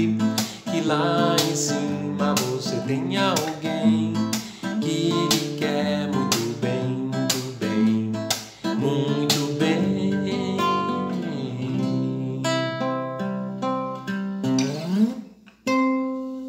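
Nylon-string classical guitar strummed as accompaniment while a man sings. The song closes on a final chord near the end that rings out and fades.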